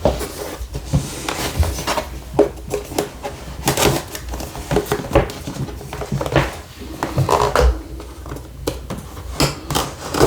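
Hands handling a tablet's cardboard and plastic packaging: repeated rustling and scraping with light knocks and clicks.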